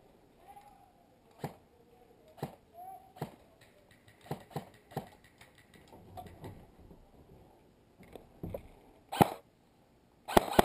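Airsoft gunfire exchange: scattered sharp clacks of shots and BB impacts at irregular intervals, with a louder one about nine seconds in and a quick pair of loud shots at the very end.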